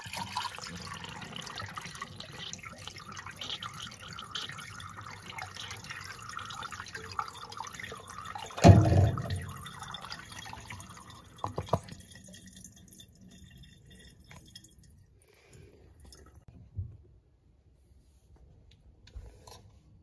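Miniature toilet flushing: water rushes into the bowl, with a loud low surge about nine seconds in as it drains. After about twelve seconds the flow dies down to faint trickles and drips.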